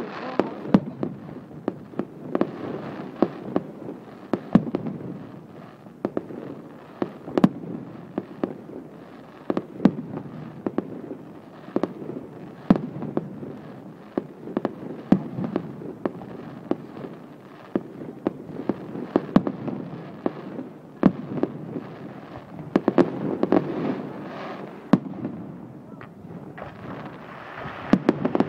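Fireworks display: a continuous crackle and rumble of bursting shells with many sharp individual bangs, heavier clusters of bursts toward the end.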